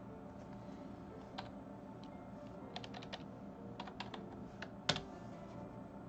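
Computer keyboard keys and clicks tapping irregularly, in small clusters, with one louder click about five seconds in.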